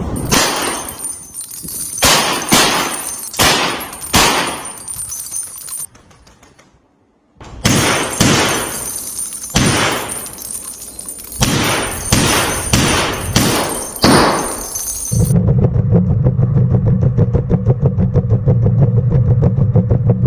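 PP-19 Vityaz submachine gun firing single shots and short bursts, each sharp crack followed by a brief ring, spaced roughly a second apart, with a short pause near the middle. About fifteen seconds in the firing gives way to a steady low mechanical hum.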